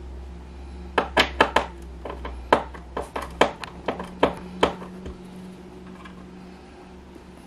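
A quick run of sharp clicks and taps, about a dozen over three and a half seconds, as thermostat wire and a screwdriver are handled at a low-voltage terminal strip.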